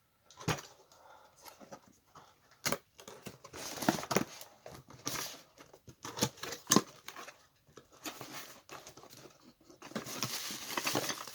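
Unboxing handling: a cardboard box being opened and packing material rustling and tearing, with scattered clicks and knocks. The rustling grows denser near the end.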